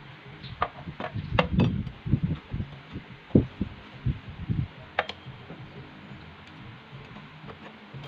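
Irregular low knocks and thumps with a few sharp clicks, busiest in the first five seconds and thinning out after, like parts and tools being handled.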